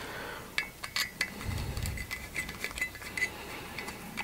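Small clicks and light taps of a screwdriver and small screws being worked into a black plastic 3D-printer part by hand, with a soft low bump about a second and a half in.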